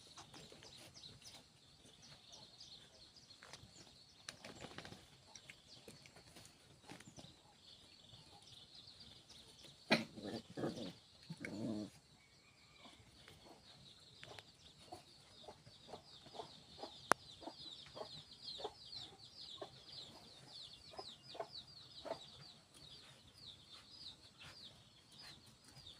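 Two puppies play-fighting, with small scuffling clicks and a short burst of growling about ten seconds in. Quick, high-pitched chirping of birds runs underneath.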